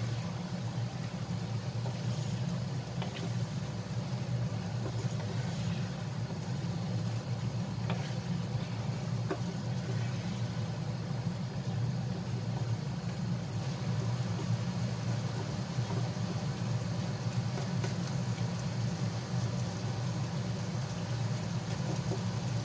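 A steady low mechanical hum, under faint sizzling from chicken gizzards and long beans stir-frying in a pan. A wooden spatula scrapes the pan lightly a couple of times.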